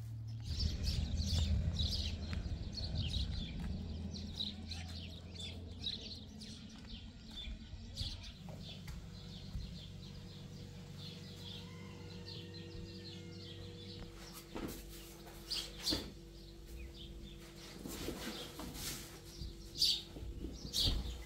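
Small birds chirping rapidly over a low steady rumble. About eight seconds in, this gives way to a steady low hum, with a few sharp knocks later on.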